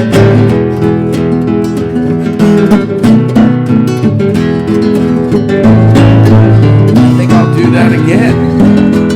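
Nylon-string classical guitar finger-picked in a blues pattern, a continuous run of plucked notes and bass lines without singing.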